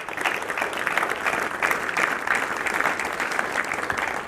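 Audience of delegates applauding.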